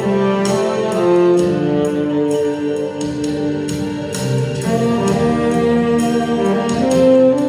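Instrumental music: a melody of long held notes over accompaniment, at a steady level.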